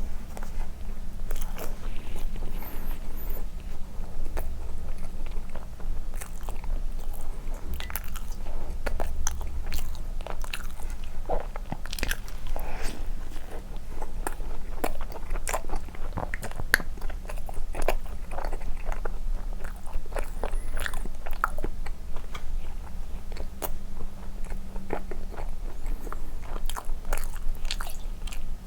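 Close-miked chewing and biting of soft condensed-milk cream bread dipped in milk: many short, irregular wet mouth clicks over a low steady hum.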